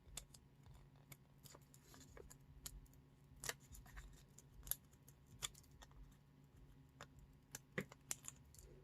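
Faint, scattered ticks and small crinkles of fingernails picking at and peeling the paper liners off foam adhesive dimensionals.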